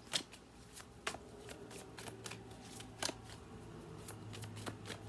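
A deck of oracle cards being shuffled by hand: an irregular run of soft clicks and riffles, several a second.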